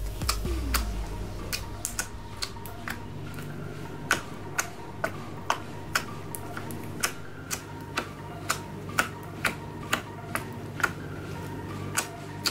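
Thick white slime in a plastic tub being poked and kneaded with the fingers, giving sharp clicking pops about twice a second.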